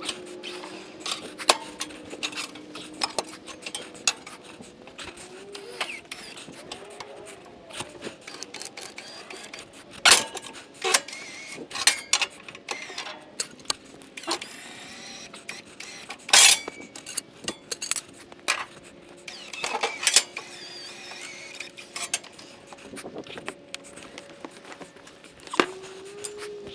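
Irregular sharp metallic clinks and clanks, as of metal tools or parts being handled and set down, loudest about 10, 12, 16 and 20 seconds in.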